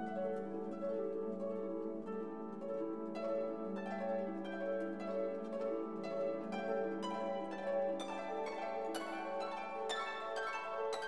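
Background music of plucked strings like harp or pizzicato, a steady run of short notes that grows busier toward the end.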